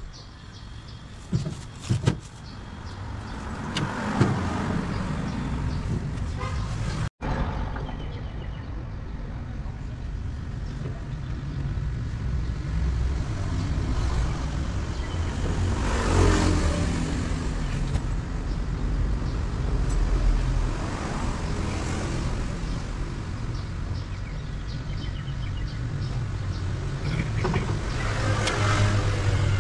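Road traffic passing, a steady rumble with vehicles swelling up and fading away several times. A few light knocks come near the start, and the sound cuts out for an instant about seven seconds in.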